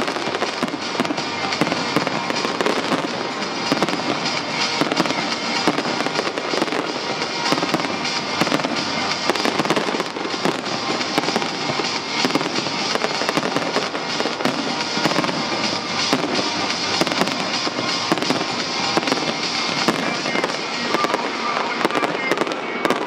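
Dense barrage of aerial fireworks, rapid bangs and crackling with hardly a pause, over the show's music soundtrack.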